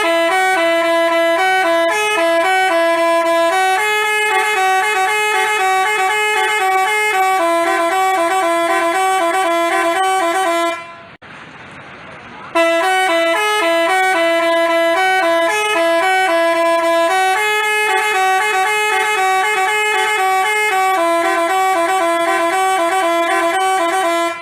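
Basuri 'telolet' multi-tone bus horn playing a tune of quick notes stepping between a few pitches. It plays in two long phrases with a pause of about a second and a half between them.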